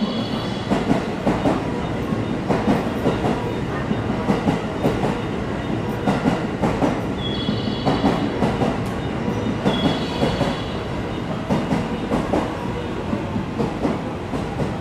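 JR Special Rapid Service electric commuter train moving along the platform, its wheels clattering over rail joints in a steady run of clacks, with brief high squeals three times.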